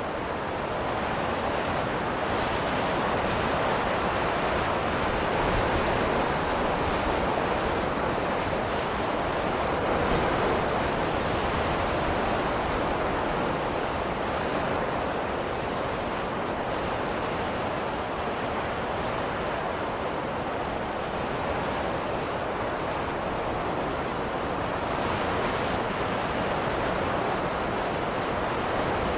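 Wind sound effect: steady rushing wind that swells and eases slowly, with no gusts or breaks.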